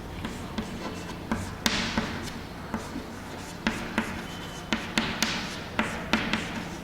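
Chalk writing on a blackboard: a series of sharp, irregular taps with short scrapes between them.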